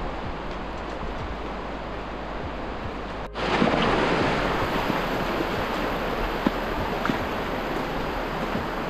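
Steady rushing of a shallow river, the North Fork of the Virgin River, flowing over rocks through a slot canyon, with some wind on the microphone. The sound cuts off abruptly a little over three seconds in and comes back louder.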